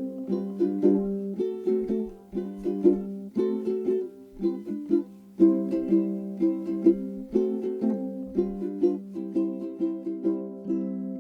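Background music of a strummed ukulele, playing a bright, rhythmic chord pattern.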